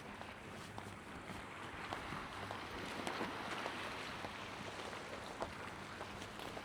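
Wind and sea by the shore: a steady hiss that swells a little about three seconds in, with a few faint ticks.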